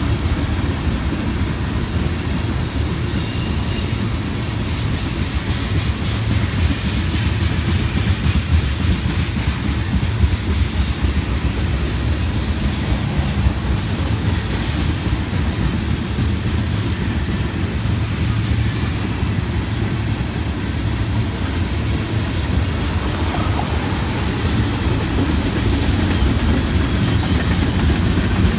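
A mixed freight train's cars rolling past at speed. There is a steady deep rumble with wheels clicking over the rail joints and a faint high wheel squeal now and then.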